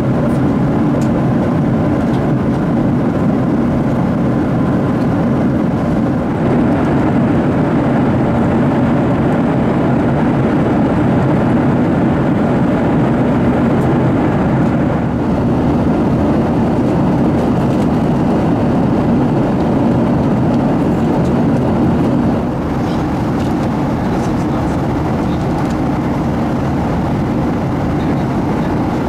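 Steady cabin noise inside a Boeing 737-700 at cruise: an even rush with a low drone underneath, shifting slightly in level a few times.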